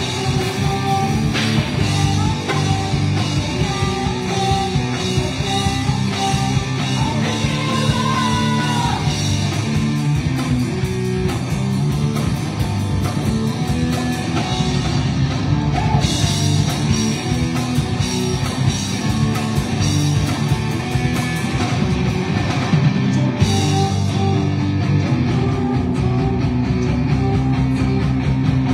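Live rock band playing: electric guitar and drum kit.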